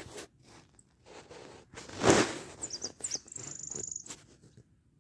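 A small finch calling: a few short high chirps, then a buzzy high trill held for under a second. Rustling handling noise on the microphone runs alongside, loudest about two seconds in.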